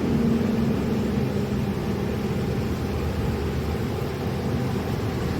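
Welding machine humming steadily over a low hiss.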